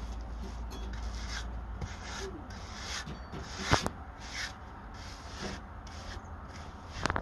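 Hand float rubbed over a rough coat of straw-filled earthen mud plaster in quick repeated scraping strokes, about two a second, floating out tool marks. One sharp click a little over halfway through.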